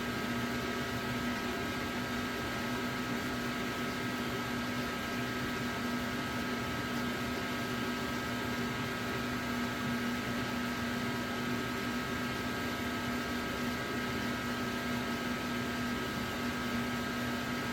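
Steady machine hum: fan-like running noise with a few constant whining tones, unchanging.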